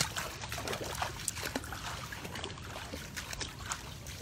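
Shallow floodwater trickling and sloshing, with many scattered faint clicks and ticks.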